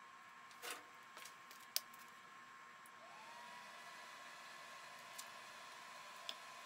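Faint sound of a PlasmArgon Cut50 pilot-arc plasma cutter powering up. A sharp click comes first. About three seconds in, a whine rises and settles into a steady hum as the machine's fan starts up. Light ticks from the amperage dial being turned come near the end.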